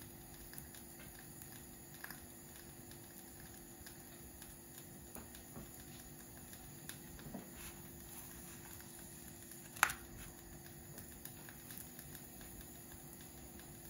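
Crêpe batter cooking in a hot nonstick frying pan: a faint, steady sizzle with scattered small crackles, and one sharper click about ten seconds in.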